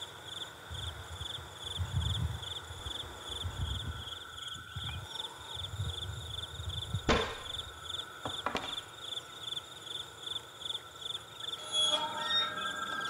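Crickets chirping in a steady high trill of fast, even pulses. Soft low thuds come in the first few seconds, and two sharp knocks sound about seven and eight and a half seconds in.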